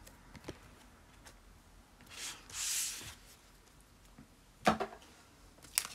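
Trading cards being handled on a tabletop: a soft rustle of cards sliding about two seconds in, then a few light taps near the end as cards are set down.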